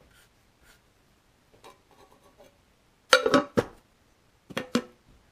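Hard objects being handled: a cluster of sharp knocks and clinks with a brief ringing note about three seconds in, then two more knocks near the end, after a few faint ticks.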